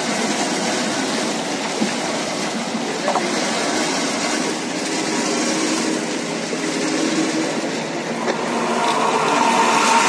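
Auger-type raisin washing machine running: the screw conveyor turning in its water-filled perforated steel trough makes a steady mechanical running noise, with a whine that grows louder near the end.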